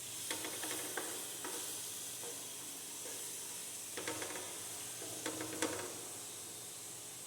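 Garlic cloves sizzling in hot dendê oil in a frying pan, with a steady hiss, while a utensil presses and scrapes them against the pan in three short bouts of clicks.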